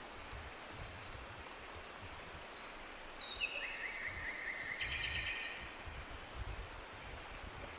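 A bird singing a short, rapid trill about halfway through, over steady outdoor background noise with intermittent low rumbling.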